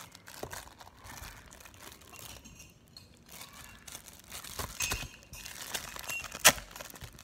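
Plastic wrapping on packs of binder paper crinkling as they are handled and turned over, with one sharp snap near the end.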